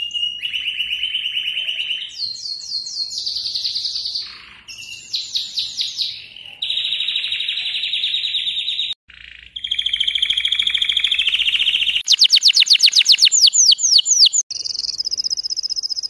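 Domestic canary singing a long, varied song: fast rolling trills, runs of quick falling whistled sweeps and steady buzzy rolls, with a brief break about nine seconds in.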